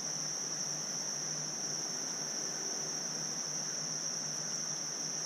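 Steady, high-pitched insect chorus, crickets trilling continuously without a break, over a faint even rush.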